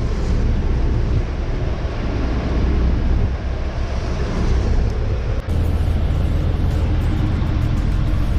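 Truck engine and road noise while driving in traffic: a steady low hum, with a brief break about five seconds in, after which the hum turns steadier.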